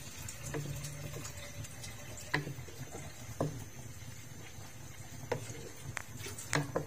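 Wooden spatula stirring watery dal in a wok, knocking and scraping against the pan now and then, about six sharp taps at uneven intervals, over a steady low hum.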